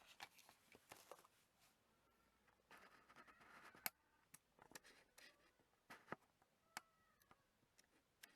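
Faint handling noises at close range: a scatter of sharp clicks and taps with two short stretches of scraping, one right at the start and one about three seconds in. A few faint chirps can be heard in the background.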